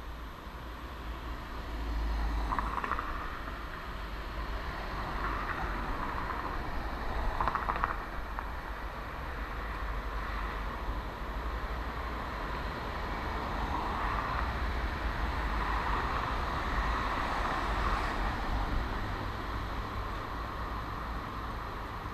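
City street traffic on wet asphalt: cars passing with tyre hiss that swells and fades several times, over a steady low rumble.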